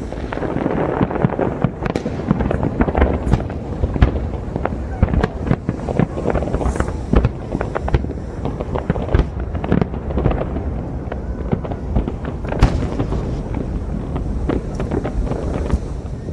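Fireworks display: aerial shells bursting in a dense, unbroken run of bangs and crackling over a continuous rumble, with a sharper, louder bang about four seconds in and another about twelve and a half seconds in.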